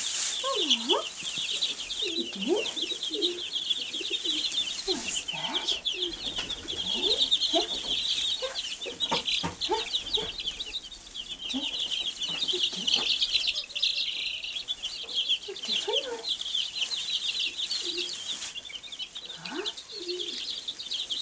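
A brood of Wyandotte bantam chicks peeping without pause, many high chirps overlapping, with scattered lower clucking calls. Brief rustles of straw and soil come and go among them.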